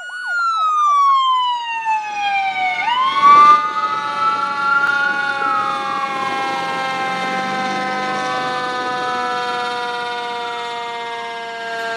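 A siren: a quick rapid warble, then a long falling wail, then slower rising and falling wails over several steady tones.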